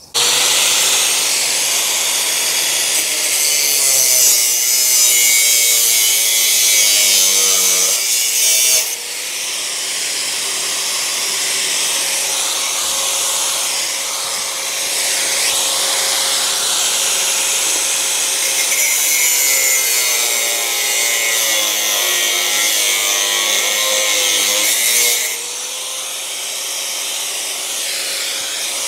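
Angle grinder cutting metal on a rusty sidecar frame: a steady motor whine under a loud hiss of the disc on steel. The motor sags in pitch as it is pressed harder, about seven seconds in and again after twenty seconds, and the cut is lighter between about nine and nineteen seconds and after twenty-five.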